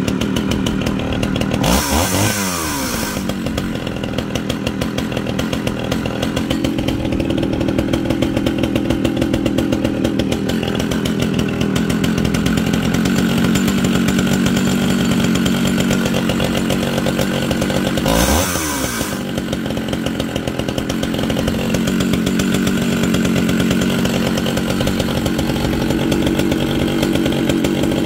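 Early-1980s John Deere two-stroke chainsaw running at idle, revved briefly to high speed about two seconds in and again at about eighteen seconds, each time dropping back to idle, with another rev starting at the very end.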